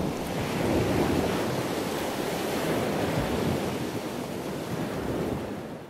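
Steady rushing noise of surf and wind, fading out at the end.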